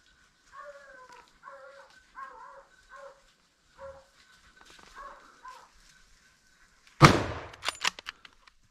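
Hunting hounds baying in a run of short repeated yelps, then about seven seconds in a single loud gunshot with a ringing tail, followed by a few fainter sharp cracks.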